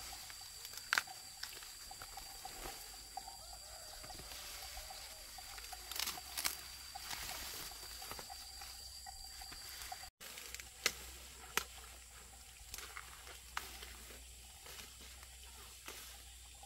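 Water trickling and sloshing, with scattered sharp clicks and knocks and a steady high-pitched whine that stops about ten seconds in.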